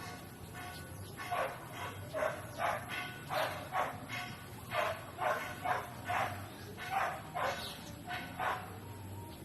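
An animal calling over and over in short, harsh calls, about two or three a second, that stop near the end.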